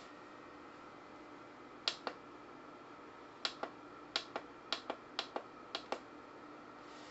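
Six pairs of sharp small clicks, each a quick click-click like something pressed and let go, the first pair about two seconds in and the rest coming about every half second from three and a half seconds on, over a faint steady hum.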